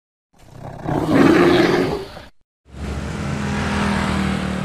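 A growling roar sound effect that swells and fades over about two seconds, then a short break of silence. After the break comes a steady rumble of street traffic with motorbike engines running.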